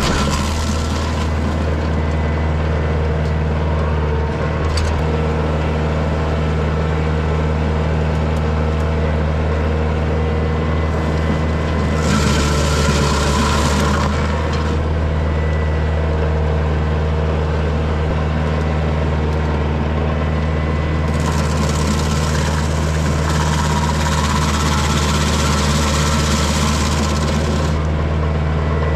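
Diesel engine of a Kioti DK40se tractor running steadily under load, driving a PTO stump grinder, heard from inside the cab. Louder stretches of hissing noise come and go: about two seconds a third of the way in, then most of the last eight seconds.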